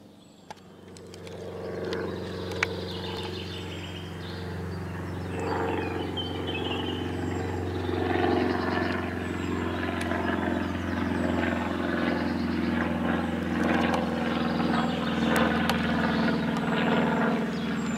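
Small propeller plane passing overhead: a steady engine hum that fades in about a second in and grows louder, with small birds chirping and trilling over it. A single sharp click about two and a half seconds in.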